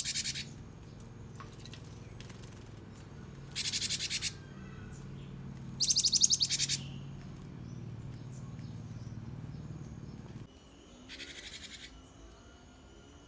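Caged gelatik batu (cinereous tit) calling in short, high bursts of rapidly repeated notes: the tail of one at the very start, then three more, each under a second long. Under it a low steady hum stops about ten and a half seconds in.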